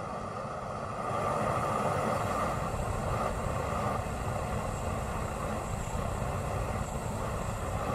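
Propane flamethrower made from a Harbor Freight weed burner, its jet of burning propane making a loud, steady rushing noise that grows louder about a second in.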